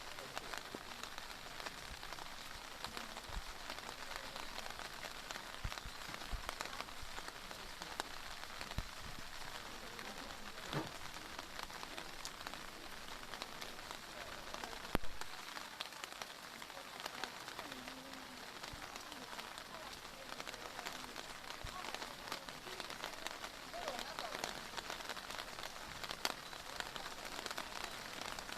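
Heavy rain pouring down: a steady hiss dense with small drop hits, with a sharp knock about halfway through.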